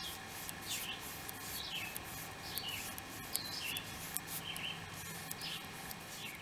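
A bird chirping over and over, short calls about once or twice a second, with a steady insect drone behind.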